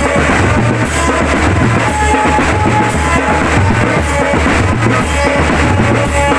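Marching drum band playing a loud, steady beat on bass drums and snares, with a few held melody notes over it.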